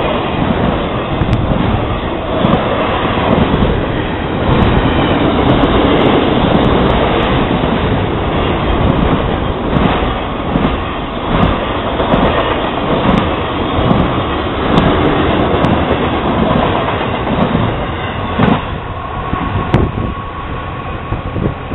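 Freight train of double-stack container and trailer flatcars rolling past at speed: a steady rumble with a rhythmic clatter of the wheels, dying away over the last few seconds as the last cars clear the crossing.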